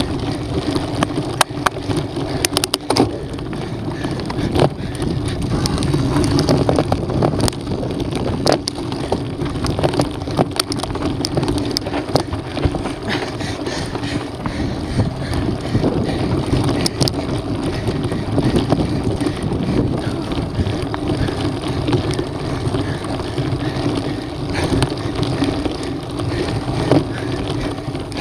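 Mountain bike ridden over a loose, rocky dirt trail: tyres crunching on gravel, with frequent sharp clicks and rattles from the bike and stones, and wind on the microphone.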